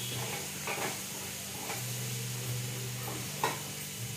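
Cooked rice being stirred into a thickened tamarind mixture in a hot pan: a steady sizzle, with a spoon scraping the pan a few times, sharpest about three and a half seconds in.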